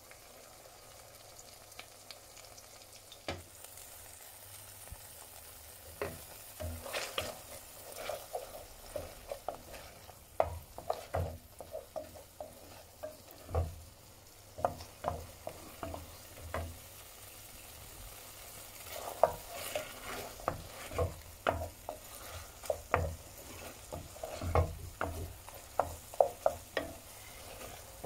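Mushrooms and garlic sizzling in a pan being deglazed with cognac. A soft steady sizzle for the first few seconds, then from about six seconds in a spoon stirring, with irregular scrapes and clacks against the pan over the frying.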